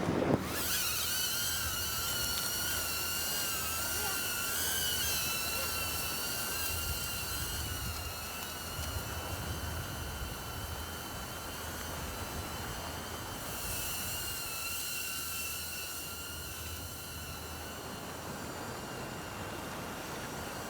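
The propellers of a small camera drone, the HOVER X1 Pro Max flying camera, whining steadily while it hovers; the pitch wavers a little now and then.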